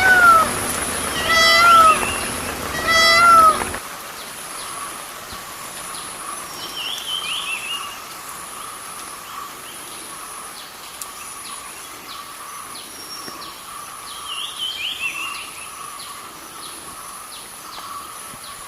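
Indian peafowl (peacock) giving its loud, cat-like mewing call three times in the first four seconds. After that, short chirps from smaller birds and a steady high buzz remain.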